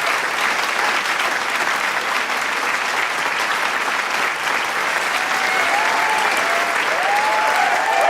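Large crowd applauding with dense, steady clapping, with a few voices calling out in cheers near the end.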